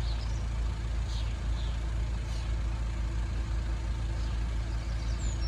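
A vehicle engine idling, a steady low rumble that does not change, with a few faint high chirps over it.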